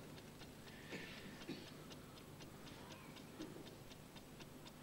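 Faint, fast, even ticking of a clock, about four ticks a second.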